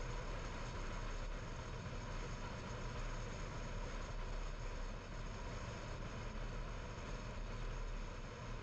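A car driving along a street: steady, even road and engine noise with a strong low hum.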